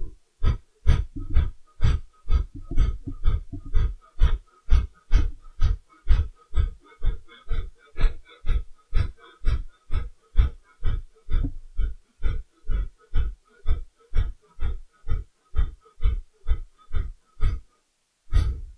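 Kapalabhati yoga breathing: a round of about forty short, forceful exhalations through the nose, a little over two a second, each a sharp puff driven by pulling in the belly, with quiet passive inhalations between. The rapid puffs stop shortly before the end, followed by one last breath.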